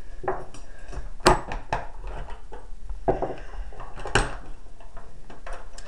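Steel coyote jaw trap being handled: a series of metallic clanks and clicks, the two sharpest about a second in and about four seconds in.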